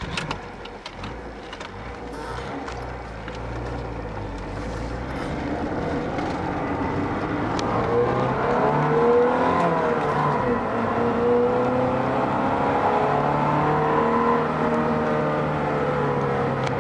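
Opel Rekord E1's 2-litre four-cylinder engine driving the car, getting louder over the first several seconds, then rising and falling in pitch as it pulls.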